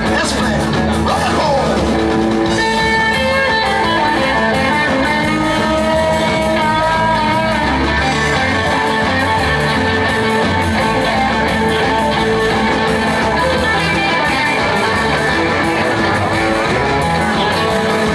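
Live rock and roll band playing an instrumental passage, electric guitar to the fore over bass and a steady drum beat.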